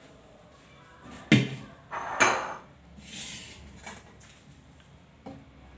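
Metal kitchenware clanking: a sharp knock about a second in, the loudest sound, then a rattling clatter and a few lighter knocks. A slotted metal skimmer is being handled against cooking pots to scoop boiled rice.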